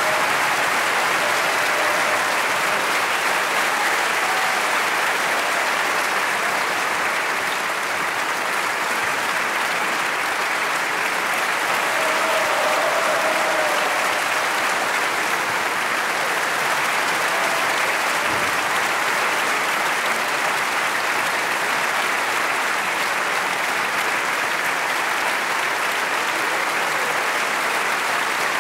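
Large theatre audience applauding: dense, steady clapping with no breaks.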